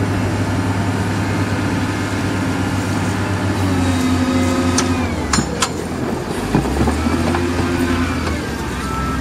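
SDLG wheel loader's diesel engine working steadily as it pushes rock and dirt with its bucket, with a few sharp knocks about five seconds in. The engine note drops lower about six and a half seconds in.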